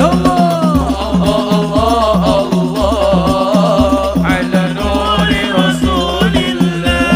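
Background music with a steady repeating beat and a melody that bends up and down in pitch over it.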